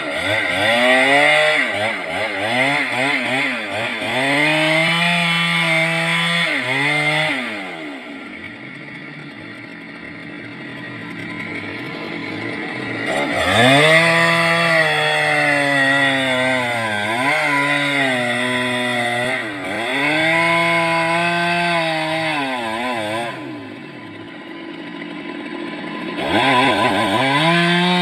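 Stihl MS 382 two-stroke chainsaw cutting into a large tree trunk, its engine pitch dipping and recovering as the chain bogs down in the wood. It eases off twice, then opens up again.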